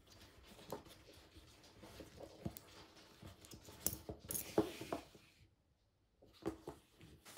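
Faint clicks and rustles of nylon dog-leash webbing being worked through an adjustable aluminium buckle, with a few sharper ticks. The sound drops out completely for about a second a little past the middle.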